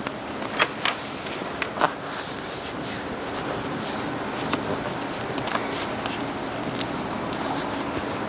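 Self-adhesive flashing membrane being handled and pressed by hand onto wall sheathing: a few sharp crackles in the first two seconds and a brief rustle about four seconds in, over a steady background hiss.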